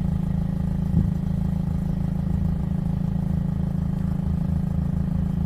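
Steady low drone of an idling engine-like motor, with one short knock about a second in.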